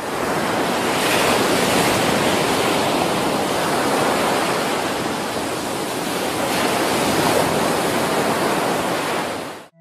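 Steady rushing noise of waves breaking on the shore. It fades in at the start and cuts off abruptly near the end.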